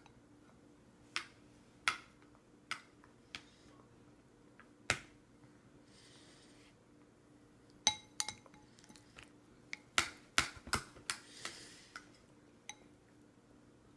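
Yellow plastic baby spoon knocking and scraping in a plastic suction bowl: sharp clicks and clinks. There are a few in the first five seconds, then a busier run of them over the second half.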